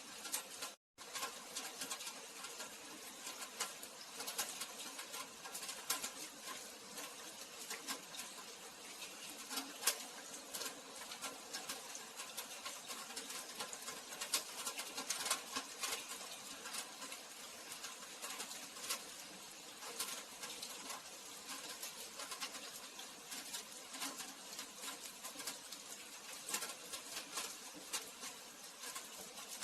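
Steady rain: a dense, irregular patter of drops, with sharper individual drop ticks here and there. The sound cuts out completely for a split second about a second in.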